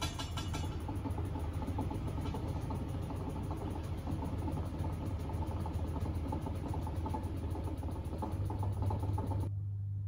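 Miele W1 front-loading washing machine filling: water splashing into the drum over a steady low hum. Near the end the inflow stops suddenly, leaving only the hum.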